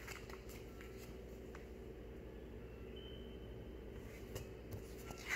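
Quiet room tone: a steady low hum with a few faint, soft ticks.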